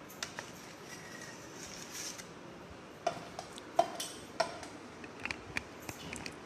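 Kitchen utensils and cake-decorating tools being handled and set down on a worktop: a short scrape, then a run of sharp clinks and knocks, the three loudest between about three and four and a half seconds in.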